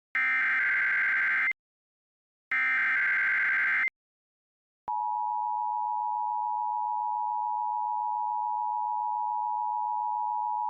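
Emergency Alert System SAME header data bursts: two harsh, warbling digital screeches, each about a second and a half long, with a second's silence after each. About five seconds in, the steady two-tone EAS attention signal starts abruptly and holds.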